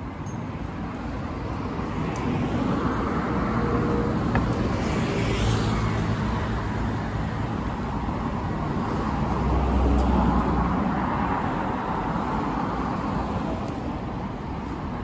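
Road traffic on a city street: vehicles passing in a steady rumble that swells about five seconds in and again around ten seconds.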